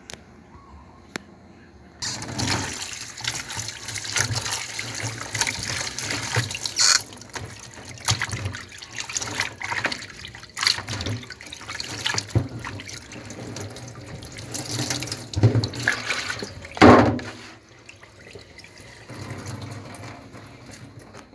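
Tap water running into a stainless-steel sink while a plastic tub is scrubbed with a sponge, with scattered knocks. The water comes on suddenly about two seconds in and stops a few seconds before the end, just after a loud clatter.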